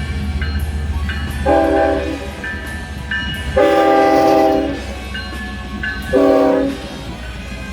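Train horn sounded three times, several notes sounding together as one chord: a blast about a second and a half in, a longer one near the middle, and a short one near the end. A steady low rumble from the train runs underneath.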